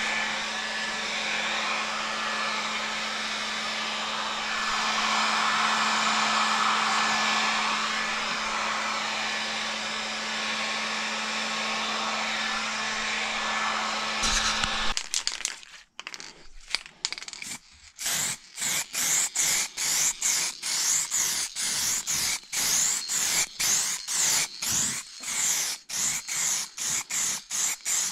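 Electric hot-air blower running steadily with a motor hum, switched off abruptly about 15 seconds in. Then quick rubbing strokes start, about two a second.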